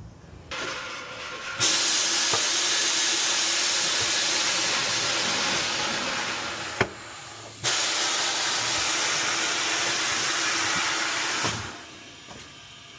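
Pressurised spray hissing in two long blasts of about five and four seconds, with a short break between them and a shorter, quieter hiss just before.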